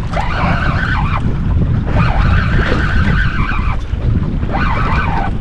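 Fishing reel being cranked in three bursts, its gears whirring up to speed and slowing again each time, while a red snapper is reeled up on a bent rod. Wind buffets the microphone throughout.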